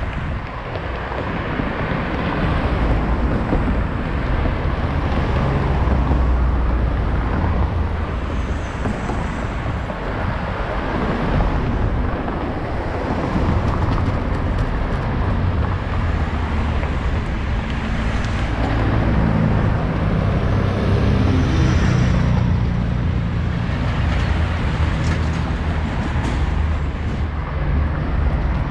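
Motor vehicle engine and road noise: a steady rumble and hiss, with the engine hum growing stronger about two-thirds of the way through.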